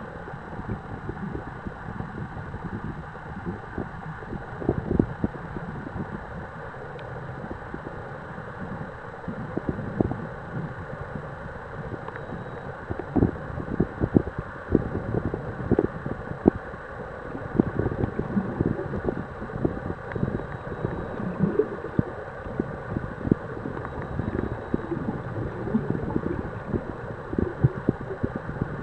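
Muffled underwater noise picked up through a camera's waterproof housing: a steady low rumble broken by many short, irregular knocks.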